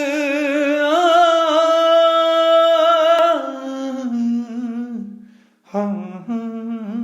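Unaccompanied singing of a Punjabi song. One voice holds a long, wavering note that steps up in pitch about a second in and dies away around five seconds, then begins a shorter sung phrase near the end.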